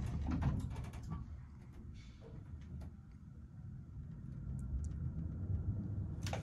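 Low rumble inside an Otis SkyRise traction elevator cab as the car starts its upward run, growing louder over the last couple of seconds as it gathers speed. A quick series of clicks in the first second.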